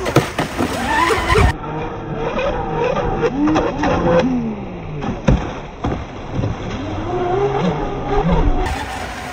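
RC powerboat's twin brushless electric motors whining at speed, the pitch rising and falling with throttle and as the boat passes, over the hiss of water spray.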